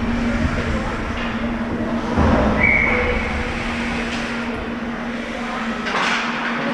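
Ice hockey arena ambience during a youth game: a steady low hum under general rink and crowd noise, with a brief high whistle tone about two and a half seconds in.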